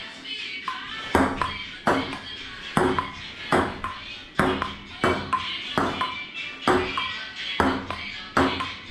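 Table tennis ball in a rally, clicking sharply off the paddles and table a little more often than once a second, at an even pace.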